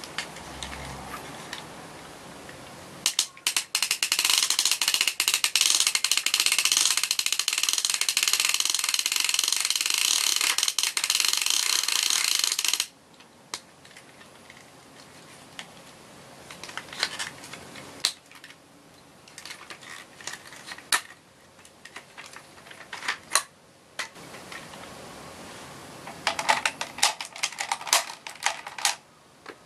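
Plastic toy drill, the DX Stinger Drill, turned by hand: its spinning cone gives a loud, continuous plastic rattle for about ten seconds, starting a few seconds in and stopping abruptly. After that come scattered clicks and knocks of the plastic parts being handled.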